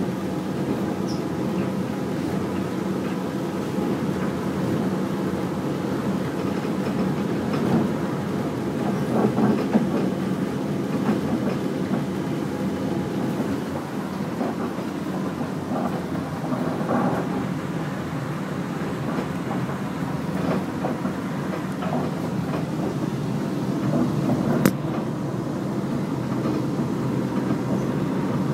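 Running noise of a Disneyland Mark VII monorail heard from inside its rear car: a steady rumble of its rubber tyres along the concrete beam with a faint steady hum, and a single sharp click about twenty-four seconds in.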